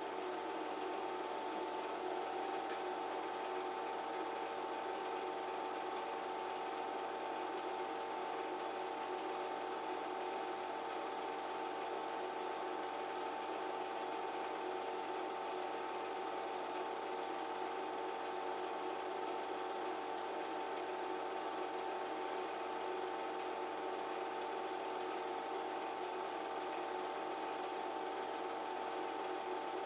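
Home-movie film projector running, a steady, unchanging mechanical whir with a few constant tones.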